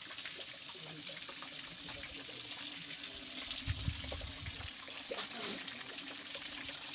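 Spring water pouring in thin streams from carved stone spouts and splashing steadily onto a stone basin. There is a brief low rumble a little past the middle.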